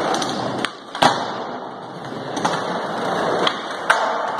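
Skateboard wheels rolling on a concrete floor, broken by several sharp clacks of the board striking the ground. The loudest clacks come about a second in and near the end.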